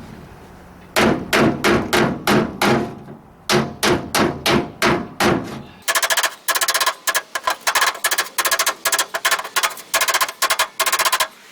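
Hammer striking the steel front fender of a 1968 AMC AMX against a dolly held behind the panel, knocking down high spots in the metal. A steady run of about three blows a second, duller at first, then from about six seconds in quicker, sharper strikes with a bright metallic ring.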